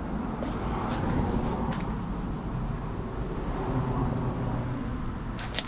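Steady background noise, a low rumble with hiss, broken by a few faint clicks.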